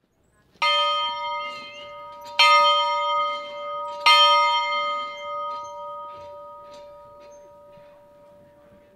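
A bell struck three times, a little under two seconds apart, each strike ringing on with a long fading ring that dies away near the end.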